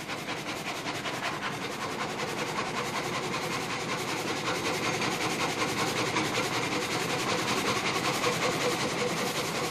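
Sawmill gang saw (frame saw) running, its reciprocating blades cutting through a log in a fast, steady, rhythmic clatter.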